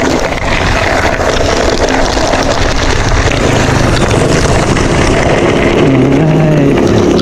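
Wind rushing over the microphone and tyre noise from a mountain bike riding on a loose gravel dirt road. In the last couple of seconds an approaching motorcycle's engine comes in, its pitch stepping.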